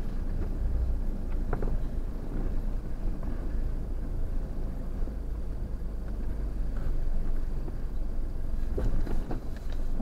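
4x4 vehicle crawling slowly over a rocky track, heard from inside the cab: a steady low engine rumble, with a few knocks as the tyres go over rocks, one about one and a half seconds in and a couple near the end.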